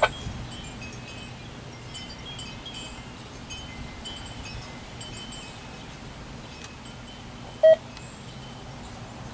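Wind chimes tinkling in scattered high pings, stirred by the wind ahead of a thunderstorm. A sharp click comes right at the start, and a single short, loud tone sounds about eight seconds in.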